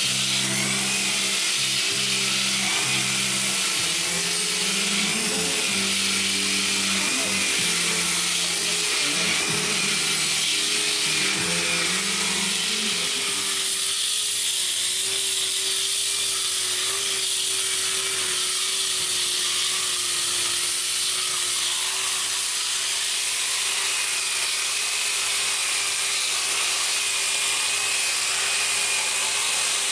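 Handheld electric disc sanders grinding old epoxy coatings off a wooden boat hull: a steady whine over a grinding hiss, the pitch wavering as the discs bear on the surface.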